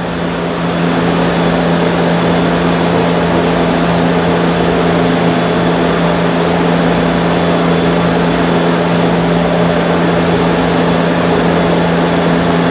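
A steady machine hum, loud and unchanging, with a low drone of fixed pitch in it.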